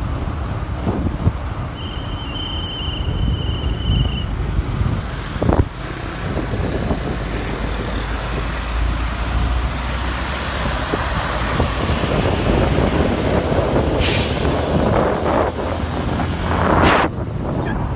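Buses and traffic running past on a road, with a steady low engine rumble throughout. A short, thin, high steady tone sounds about two seconds in, and a sudden loud air hiss comes about fourteen seconds in.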